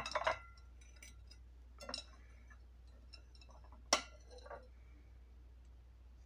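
Porcelain plates clinking against each other as they are handled: a few separate clinks, each with a brief ring. The sharpest comes about four seconds in.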